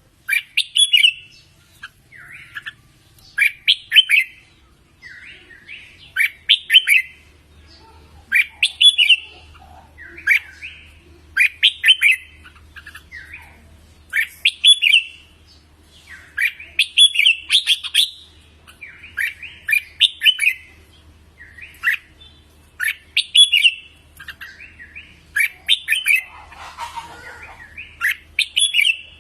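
Red-whiskered bulbul singing: short bright phrases repeated about every one and a half seconds, with one brief harsher, noisier call near the end.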